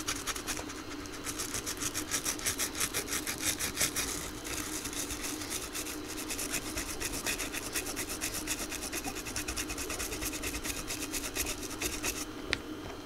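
A brush scrubbing leftover solder flux off a Technics turntable's pitch-fader circuit board with PCB cleaner: rapid, scratchy back-and-forth strokes, strongest in the first few seconds, stopping about a second before the end.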